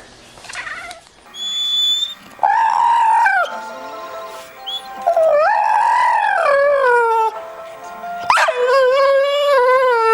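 A dog howling: three long, wavering howls, the second longer than the first and the third lower in pitch and still going at the end. A short high steady tone sounds about a second and a half in, before the first howl.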